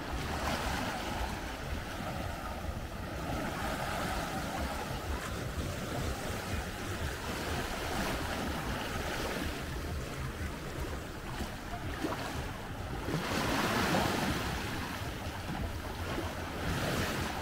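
Small sea waves washing onto a beach, each wash swelling and fading over a couple of seconds, the biggest about two-thirds of the way through, over a low rumble of wind.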